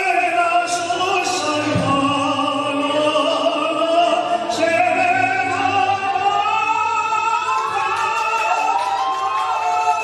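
A singer with music, holding long notes that slide from one pitch to the next.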